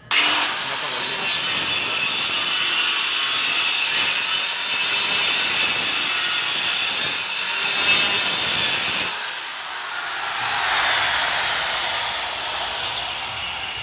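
Handheld electric circular cutter spinning up and cutting along the edge of a laminate-faced board, a steady high whine over the cutting noise. About nine seconds in the cut stops and the motor's whine falls steadily in pitch as the blade coasts down.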